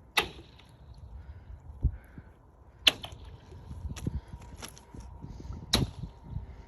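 Footsteps crunching over frozen, snowy ground: soft low thuds with about five sharper, irregular crunches.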